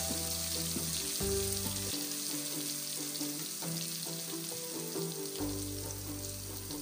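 Sliced onions sizzling steadily in a pan of hot oil, with soft background music playing underneath.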